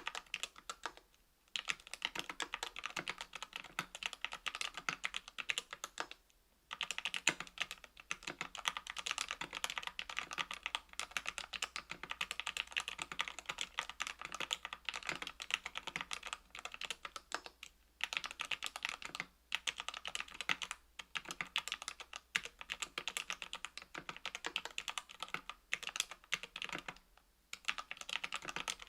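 Fast typing on a KBDfans Tofu 65% aluminium-plate mechanical keyboard with Equalz C³ Macho 62g linear switches lubed with Krytox 205g0, under GMK keycaps. The keystrokes come in dense runs, broken by a few brief pauses.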